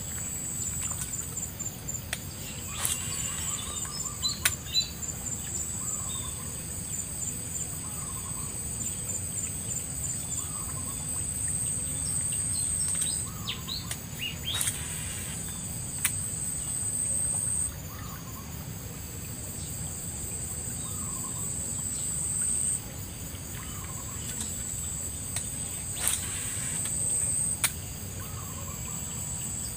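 Insects droning steadily at a high pitch, the drone stepping up and down in loudness, with a bird repeating a short call every second or two. A few sharp clicks stand out above it.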